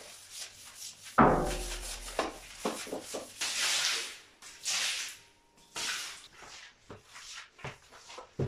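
Bathroom floor being washed: a loud knock with a brief ringing about a second in, then repeated swishes of soapy water and a floor squeegee pushed over wet tiles.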